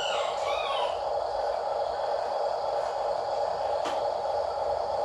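A rooster crowing, its call tailing off about a second in, over a steady drone. A single sharp click comes near the end.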